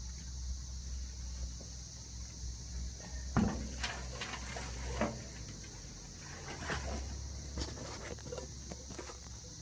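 A steady high drone of cicadas, with scattered knocks, rustles and thumps from about three seconds in as soil is tipped from a plant container into a wheelbarrow.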